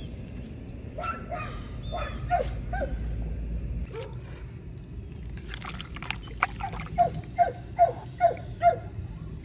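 A dog yipping in short, sharp barks that drop in pitch: a few scattered ones, then a quick run of about eight, two or three a second, in the last few seconds. The dog is eager for the raw chicken being cut up.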